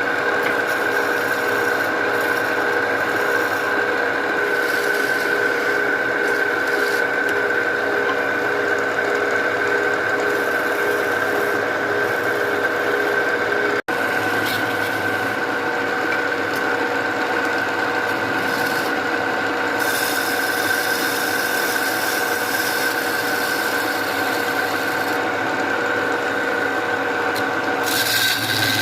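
Wood being abraded by a running power tool: continuous rasping over a steady motor whine, broken off for an instant about halfway through.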